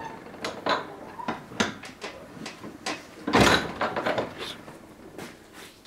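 Irregular knocks and clicks of a small steel fitting being worked and handled in a bench vise, with a louder clatter about three and a half seconds in.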